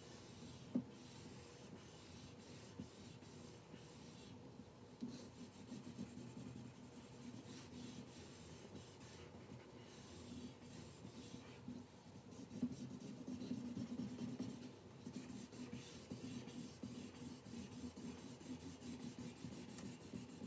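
Felt-tip marker scrubbing across paper, going over and over in the same direction to fill a large area with solid color; faint, with a single sharp tap about a second in.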